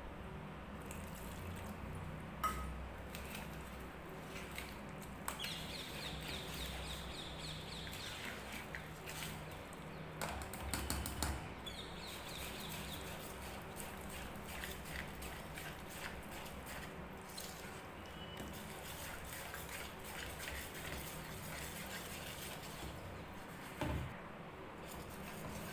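A wire whisk stirring a wet wheat-flour batter in a stainless steel bowl, making faint, steady sloshing and the scrape of the wires against the metal. The stirring is briefly louder about ten seconds in.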